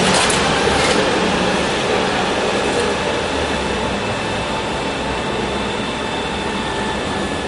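Articulated trolleybus pulling in and standing at a stop: a steady electric hum with faint high tones held over street noise. Another vehicle passes close in the first second, and the sound eases slowly after that.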